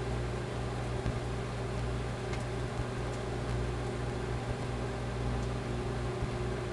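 Microwave oven running with a steady hum while squares of American cheese cook and bubble inside, with a few faint ticks.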